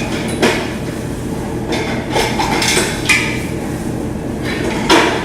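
Coin mechanisms of a U-turn bulk vending machine being turned and tested: several sharp metallic clanks and clinks at uneven intervals, over a steady low hum.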